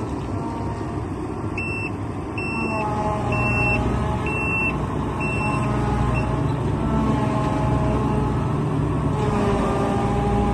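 John Deere 1170 combine harvester's engine running steadily, with a high electronic warning beeper sounding about six times, roughly once a second, in the first half.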